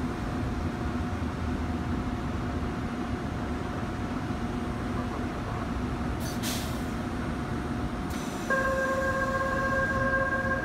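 Seoul Metro Line 1 VVVF electric train standing at the platform with its doors open, its onboard equipment humming steadily. A short hiss of compressed air comes about six seconds in. About two seconds later a steady door-closing warning tone starts and keeps sounding as the doors close.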